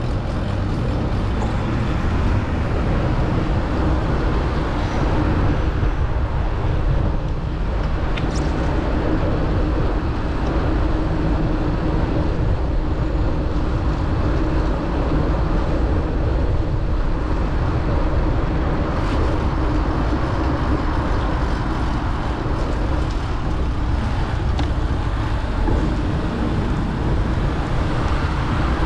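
City traffic heard while riding a bicycle: a steady rumble of passing cars and buses, with wind buffeting the microphone.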